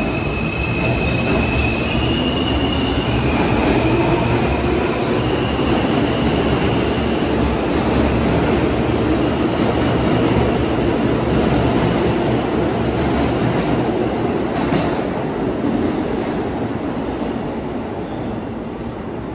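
R160 subway train running on the tracks, a steady loud rumble with high whining tones that shift in pitch in the first few seconds. The noise fades over the last few seconds.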